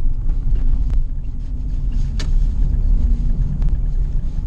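Lada Priora's rear suspension knocking while driving over bumps, heard inside the cabin over the steady low rumble of the road: a few sharp knocks, the loudest about two seconds in. The driver suspects a worn rear shock absorber, possibly the left one.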